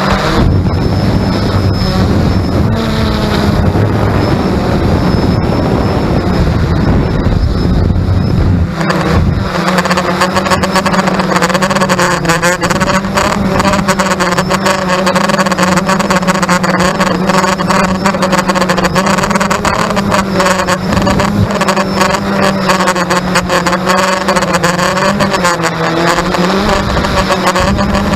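X380 quadcopter drone's motors and propellers running with a steady hum whose overtones waver slightly in pitch. From about ten seconds in, a fast crackling rattle sits over the hum. This is a noise its owner finds strange.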